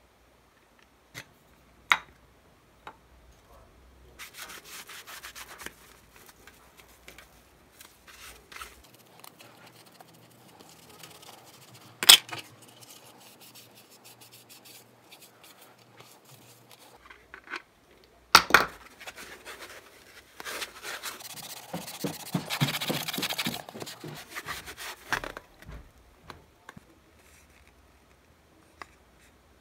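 Hard plastic parts of a Nerf Recon CS-6 blaster being handled, giving scattered sharp clicks and knocks. There are two stretches of rubbing or scraping on the plastic shell, the longer one near the end. The loudest sound is a single sharp click about twelve seconds in.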